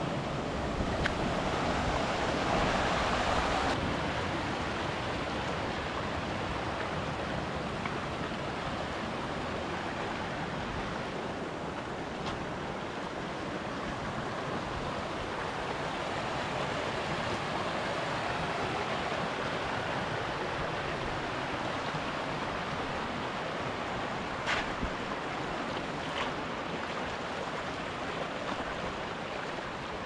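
Mountain stream rushing steadily over rocks, a little louder in the first few seconds. Two short knocks come near the end.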